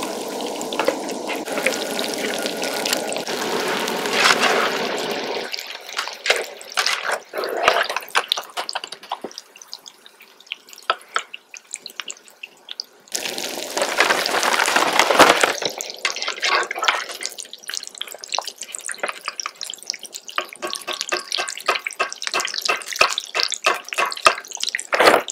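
Hush puppies and crinkle-cut fries deep-frying in hot grease in cast iron Dutch ovens: a steady sizzle full of crackling pops, louder for the first few seconds and again around the middle.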